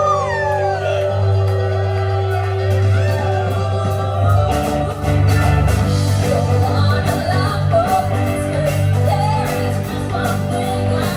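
A live band playing a Christmas pop song, a singer's voice over steady bass notes and guitar.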